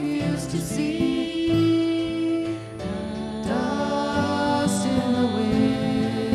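Acoustic guitar accompanying a voice that sings long held notes.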